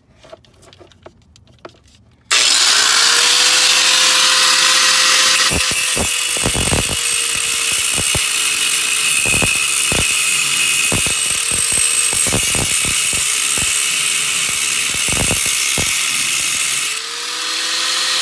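Cordless angle grinder spinning up about two seconds in, then its cut-off wheel grinding through the steel brake pedal with a loud, steady hiss and irregular knocks. The motor lets off briefly near the end and spins up again. The wide automatic brake pedal is being cut down to make room for a clutch pedal.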